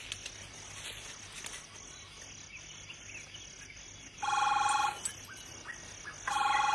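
Telephone ringing: two rings, each under a second long, about two seconds apart.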